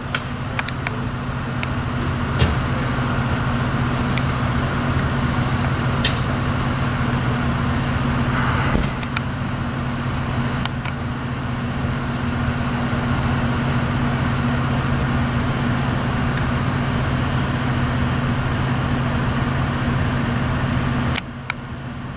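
A vehicle engine idling with a steady low hum, with a few faint clicks over it.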